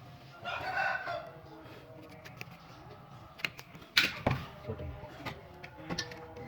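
Scattered sharp knocks and clicks of workshop handling, the loudest about four seconds in, after a short voice near the start.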